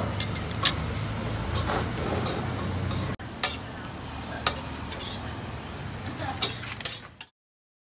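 Mussel omelette (hoy tod) frying on a street-stall pan: a steady sizzle with a few sharp clinks every second or two. There is a brief break about three seconds in, and the sound cuts off abruptly near the end.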